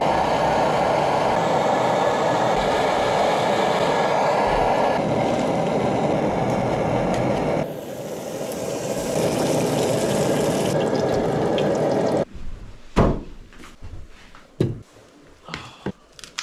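Liquid-fuel backpacking stove burning with a steady rushing hiss that shifts slightly twice. It stops about twelve seconds in, followed by a few light knocks and clicks.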